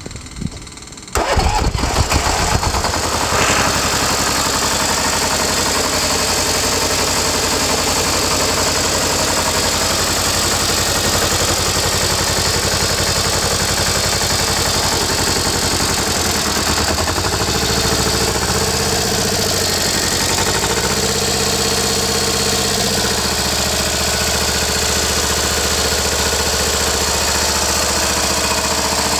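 Deutz F2L410 two-cylinder air-cooled diesel engine starting about a second in, then running steadily. Its speed rises and falls for several seconds around the middle before settling again.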